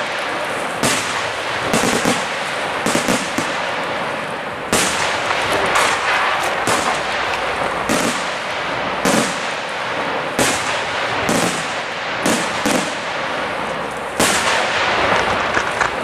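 Aerial fireworks shells bursting in a dense, irregular string of sharp bangs, about one to two a second, over continuous crackling. The heaviest bursts come about five seconds in and again near the end.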